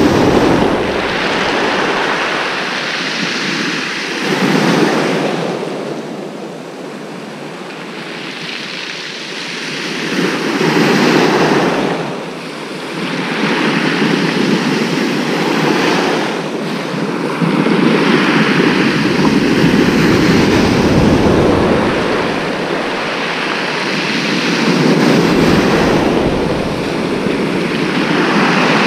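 Waves breaking and washing up a shingle beach, swelling and easing off in surges every few seconds.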